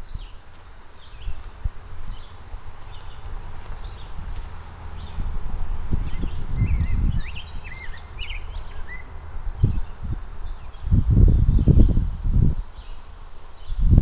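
A steady high-pitched insect drone with scattered bird chirps, most of them about halfway through. Low rumbling bursts on the microphone come and go, the loudest near the end.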